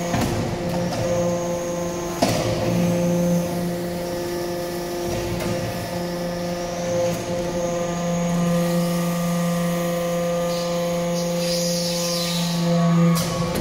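Hydraulic brass-chip briquetting press running: a steady hum-whine from its hydraulic power unit, with sharp knocks about two seconds in and again near the end as the press works through its cycle.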